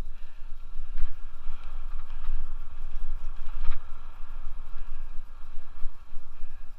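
Wind buffeting a helmet-mounted camera microphone over the noise of a Scott Aspect 770 hardtail mountain bike riding fast down leaf-covered dirt singletrack, with two sharp knocks from the bike over bumps, about a second in and near the middle.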